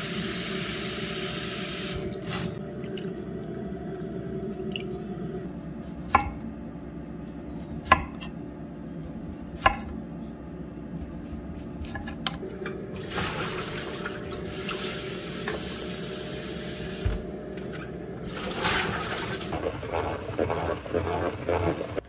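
Tap water running into a plastic salad spinner as hands wash shredded cabbage. In between, a chef's knife slices a tomato on a wooden end-grain chopping board, with three sharp knocks of the blade on the board about two seconds apart. The water then runs again twice.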